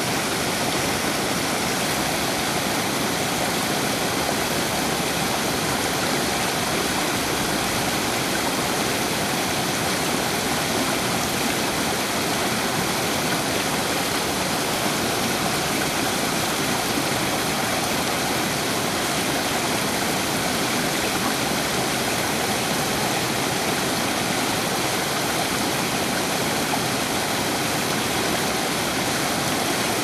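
Small alpine mountain stream cascading over rocks: a steady, even rush and splash of water that does not change.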